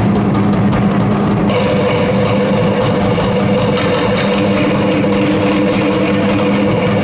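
Live Tahitian ote'a drumming: sticks beating a fast, dense rhythm on drums, with a steady low pitched ring beneath the strokes.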